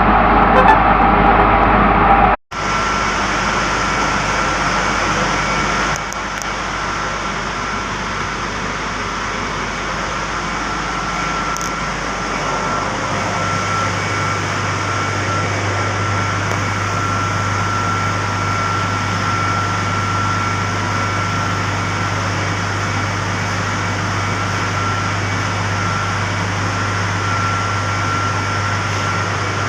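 Fan coil unit's electric motor running, with a steady rushing noise and a thin, steady whine: an abnormal sound from the drive-end bearing at the coupling, taken for a bearing problem. The sound breaks off briefly about two seconds in, and a low steady hum joins a little before halfway.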